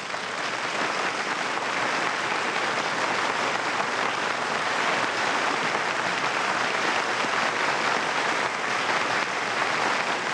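Steady applause, an even clapping noise, on an old radio transcription-disc recording.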